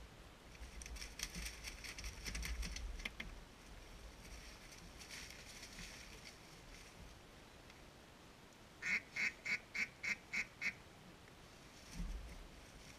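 Duck quacking: quieter fast chattering in the first few seconds and again around the middle, then a run of seven loud, evenly spaced quacks, about four a second, starting about nine seconds in. A low rumble sits under the early chatter, and there is a single low thump near the end.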